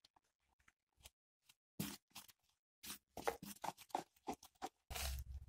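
Plastic spoon stirring flour into a wet dough mix in a plastic bowl: irregular short scrapes and scratches, with a longer, fuller scrape near the end.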